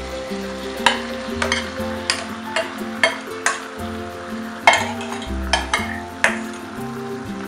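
Wet baby prawns tipped from a steel bowl into a hot pan of masala, sizzling, while a steel spoon scrapes them out and knocks against the bowl and pan in about ten sharp clinks.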